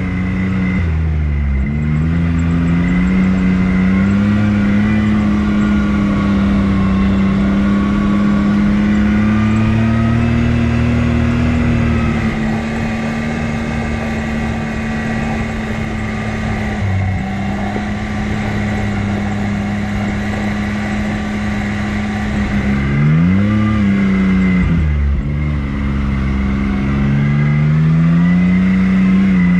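ATV engine running at a steady cruising pace under way. Its note dips and climbs back near the start and again about three quarters of the way through as the throttle eases off and opens up.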